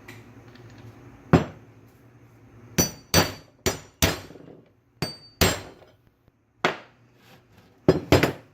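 Hammer striking a 15 mm deep-well socket to drive a power steering pump shaft back down into the pump housing: about eleven sharp metallic blows at an uneven pace, some with a brief ring.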